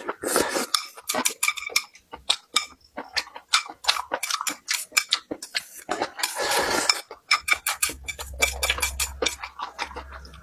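Close-miked eating: rapid sharp clicks and taps of utensils against dishes, mixed with chewing. A low hum comes in about eight seconds in.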